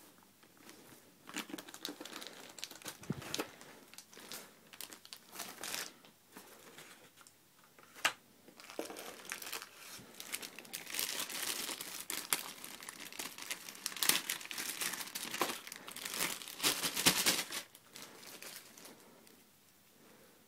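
Packaging being crumpled and torn open by hand: irregular crinkling and rustling with a sharp snap about eight seconds in, busiest in the second half and settling down near the end.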